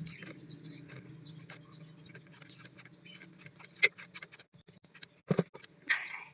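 Light, irregular clicks and taps of small paper cards and their packaging being handled, with a few sharper knocks a little after the middle and near the end.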